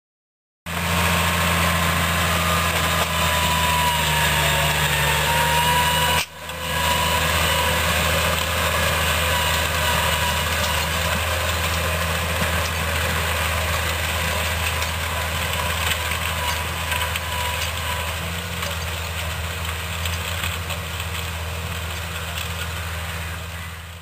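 New Holland T6050 tractor's diesel engine running steadily under load while pulling a four-furrow Lemken plough and press. The sound cuts out briefly about six seconds in and picks up again.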